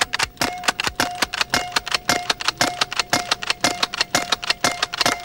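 Pre-charged pneumatic repeating air rifle fired as fast as its sliding-forend action allows: a rapid string of sharp shots at about four a second, stopping abruptly near the end. A faint steady ringing tone runs beneath the shots.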